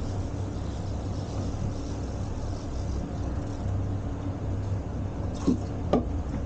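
Twin outboard engines running steadily at trolling speed, a low drone with wind and water noise over it. Two short, sharp knocks come about five and a half and six seconds in.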